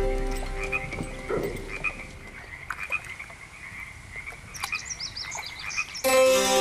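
A chorus of frogs calling in a reed marsh, many short calls repeated close together. Background music fades out in the first second and starts again abruptly near the end.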